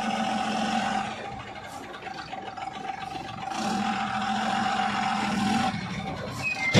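Diesel tipper truck's engine running as the truck moves off slowly over dirt. A steady high note runs throughout, and the engine swells twice under throttle, briefly at first and then for about two seconds midway.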